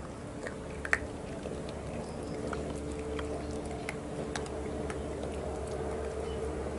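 Several puppies crunching dry kibble, heard as scattered crisp clicks of chewing, over a steady low hum.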